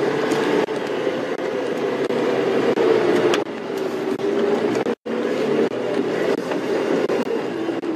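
Safari game-drive vehicle driving along a dirt track: a steady engine drone with rattling and road noise. The sound drops out for a split second about five seconds in.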